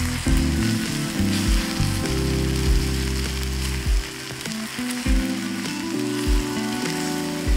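Eggs and chopped vegetables sizzling in hot oil in a nonstick wok on a portable gas stove, with a spatula stirring and breaking up the eggs. Under the sizzle run background music's low notes and a soft beat about once a second.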